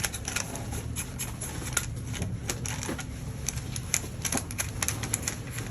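An AEG airsoft rifle's buffer tube being turned and handled while the battery is fitted, giving irregular light clicks and rattles over a low steady hum.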